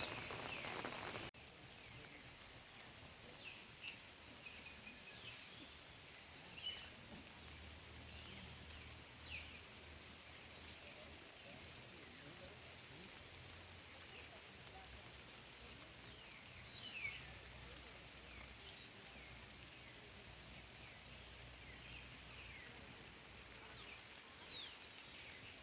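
Rain noise that cuts off abruptly about a second in, followed by quiet rural outdoor ambience with scattered short, high bird chirps.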